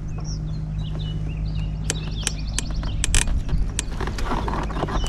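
Fishing reel drag clicking as a big striped bass pulls line: scattered sharp clicks with a short run of fast ticking about two seconds in, over a low steady hum and faint high chirps.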